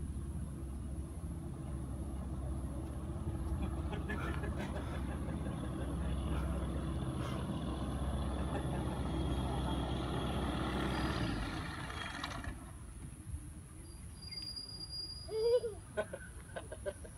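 Microlight trike's engine and pusher propeller running steadily as it taxis closer, growing a little louder, then falling away sharply about twelve seconds in.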